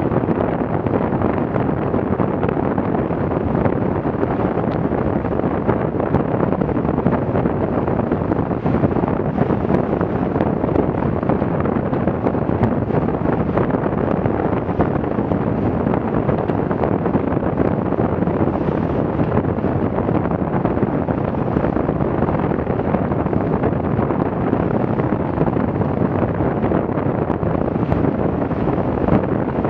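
Steady wind noise buffeting the microphone, over the rush of water and spray along the hull of a Farrier F-82R trimaran sailing at about 10 knots.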